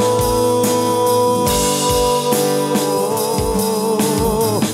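Live band playing a ballad: a male lead voice holds one long sung note, steady at first and then wavering with vibrato, over a kick drum, acoustic guitar and a keyboard pad. A delay effect is pushed onto the voice from the mixer.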